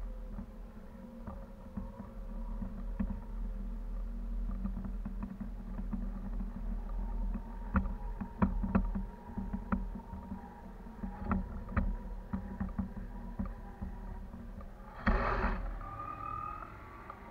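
Wind buffeting a camera rig hung from a kite high aloft: a steady low rumble with scattered ticks and clicks from the swaying rig, and a brief louder rush of wind about fifteen seconds in.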